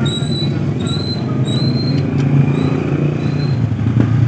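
Steady low rumble of an engine running nearby, like street traffic. Over it come a few short, high, rising chirps in the first two seconds, and a single click near the end.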